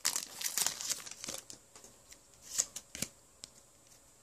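Foil booster pack wrapper crinkling and trading cards being handled: dense crackling in the first second and a half, then a few scattered sharp clicks, dying away about three and a half seconds in.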